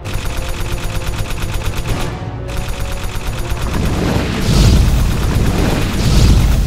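Sound-effect machine-gun fire, a rapid continuous stream of shots, with two explosion booms breaking in about four and a half and six seconds in.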